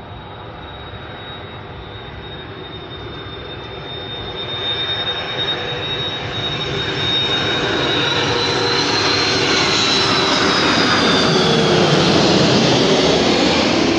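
Airbus A330-300 airliner with twin General Electric CF6 turbofans on landing approach, passing low overhead. A high fan whine and a broad rumble grow steadily louder, and near the end the whine and a lower tone drop in pitch as the jet goes over.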